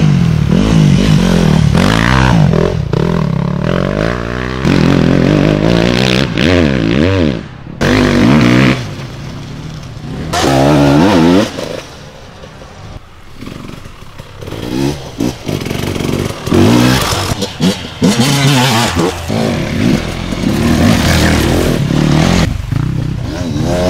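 Enduro dirt bikes revving on the throttle, engine pitch rising and falling, in a string of short passes that cut abruptly from one bike to the next.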